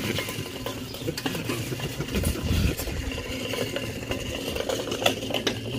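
A small-block Chevy V8 on a wheeled stand rolling across a concrete driveway: a continuous rumble of small wheels, with many light metallic clicks and rattles.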